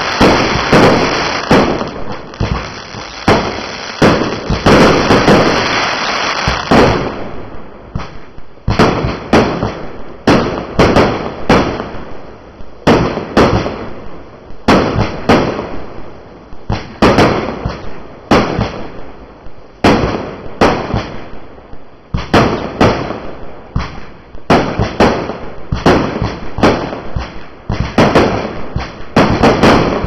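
Fireworks launching and bursting in the air. A dense, rapid run of bangs lasts about seven seconds, then sharp bangs follow about one or two a second.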